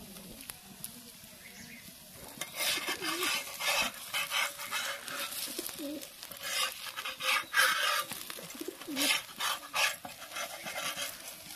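A flat metal spatula scraping and rubbing on a hot iron tawa in repeated irregular strokes, working loose a chilka roti made from wheat-flour batter. The scraping starts about two and a half seconds in, after a faint hiss from the cooking batter.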